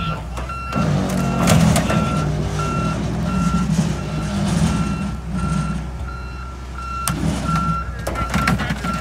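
Case 721F wheel loader's backup alarm beeping steadily, about one and a half beeps a second, over the running of its diesel engine as it backs up with a car slung from its bucket, with a few sharp clanks.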